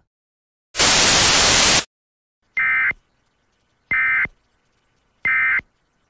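About a second of loud static, then three short bursts of warbling two-pitch digital data, about 1.3 s apart: the Emergency Alert System's SAME end-of-message code, which closes the alert.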